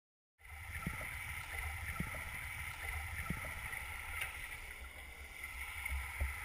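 Steady underwater rush of stream water, starting abruptly about half a second in, with a low rumble and a few soft knocks.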